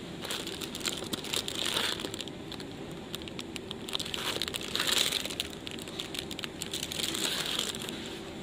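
Packaging crinkling and rustling as plastic-wrapped cloths in a cardboard shelf box are handled by hand, in three bursts: about a second in, around five seconds in, and near the end. A steady low hum runs underneath.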